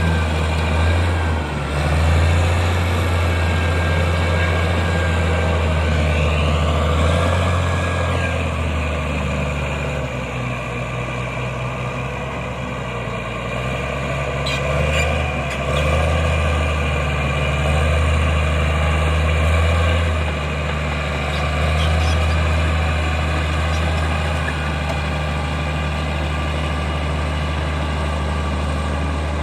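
Caterpillar D6G bulldozer's diesel engine running steadily with a deep drone that swells and eases as the machine works. A brief whine rises and falls about six seconds in.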